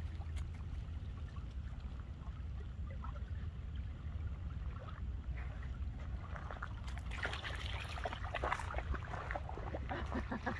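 Small waves lapping gently at a gravel lake shore over a steady low rumble. From about seven seconds in, footsteps crunch and rustle through dry leaves and brush.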